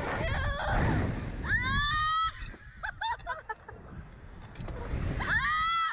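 Women on a slingshot ride screaming and laughing as they are flung about, with wind rushing over the microphone. Long high screams come about a second and a half in and again near the end, with short yelps and laughs between, and gusts of wind rumble in the first two seconds and again shortly before the end.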